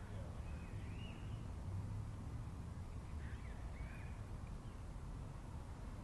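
Faint bird calls: short arching chirps about a second in and again around three to four seconds, over a steady low rumble.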